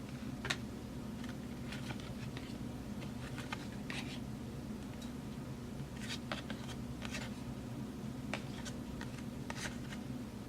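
Football trading cards being handled and flipped through by hand: scattered light clicks and flicks of card stock over a steady low background hum.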